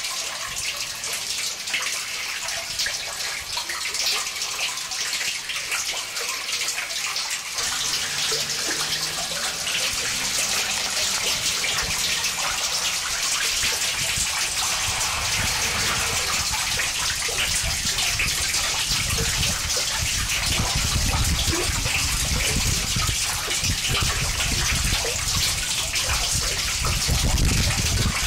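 Harsh noise music played live: a dense, steady wall of hissing static. A low rumble comes in about eight seconds in and grows heavier in the second half.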